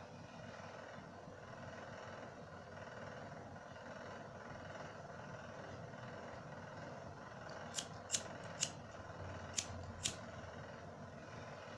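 Five sharp clicks in quick, uneven succession about two thirds of the way in, over a steady faint hum of background noise.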